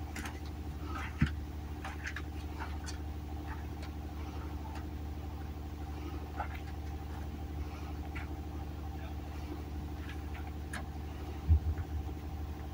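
An engine running steadily, a low even hum, with a few scattered knocks; a sharper thump comes about a second in and a couple more near the end.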